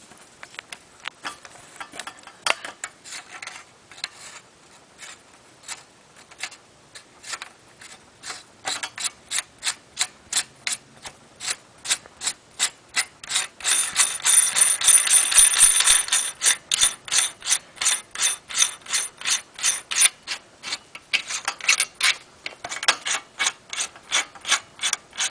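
Chrome 22.2 mm headset's threaded bearing seal being screwed down the threaded steering tube, a long run of sharp metallic clicks like a ratchet. The clicks come sparsely at first, then quicken to three or four a second, are densest and loudest about halfway through, and stay regular to the end.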